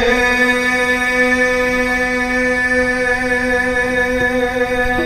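Harmonium holding one steady chord in Sikh kirtan while the singing pauses between lines of the hymn.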